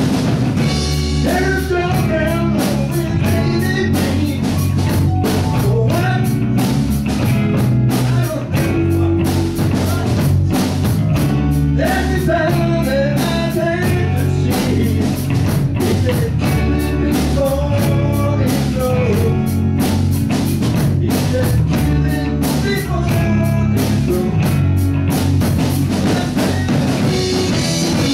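Live rock band playing a song at full volume: electric guitars and a drum kit keeping a steady beat, with a lead melody over the top.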